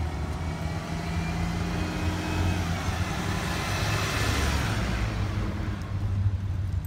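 2011 Blue Bird Vision school bus driving past, its engine and tyre noise swelling to the loudest about four seconds in and fading as it goes by.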